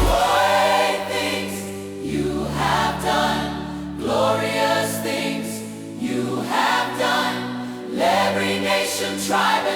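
African gospel music: a choir sings drawn-out phrases with no clear words over held chords, swelling anew about every two seconds.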